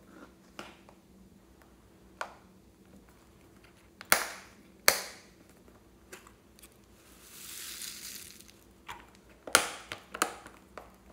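Plastic flower-shaped compartment case being handled, giving sharp plastic clicks: two loud ones about four seconds in, two more near the end, and a few fainter taps between. In the middle, a soft rustling scrape lasting about a second and a half.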